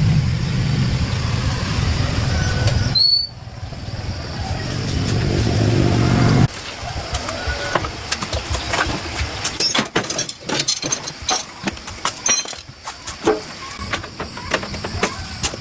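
A small motorcycle engine running, broken by an abrupt cut about three seconds in, then stopping suddenly about six and a half seconds in. A string of sharp metallic clinks and knocks follows.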